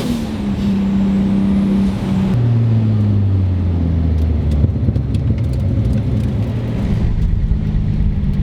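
Car engine running at steady revs; about two seconds in its note changes to a lower, deeper one.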